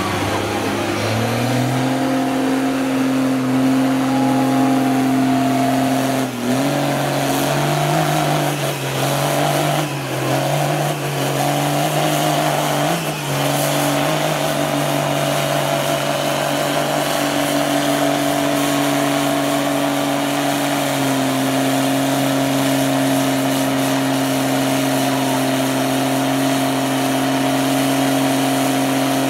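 Lifted mud-bog pickup truck's engine held at high revs under full throttle as the truck plows through deep mud: a loud, steady drone whose pitch steps up or down a few times, with brief dips around the middle.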